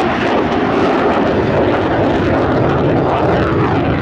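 Loud, steady jet engine noise from an F-35A Lightning II in flight, its Pratt & Whitney F135 afterburning turbofan.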